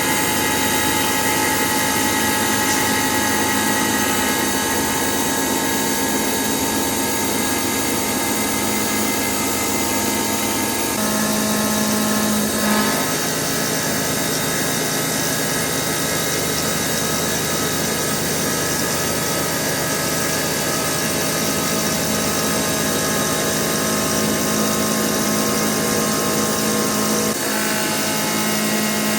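Hitachi Seiki VM50 CNC vertical mill machining a steel mold: a steady cutting noise with a whine of several steady tones. The sound changes about eleven seconds in, when a new pass with a 10 mm cutter at 3200 rpm begins, and shifts again near the end.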